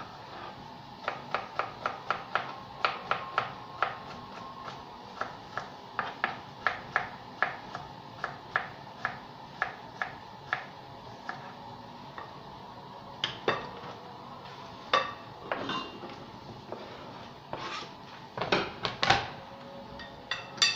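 Kitchen knife slicing a cucumber on a plastic cutting board: steady chops, about two to three a second, that thin out after the middle. Near the end come louder knocks and clatter as the slices are swept off the board into a glass bowl.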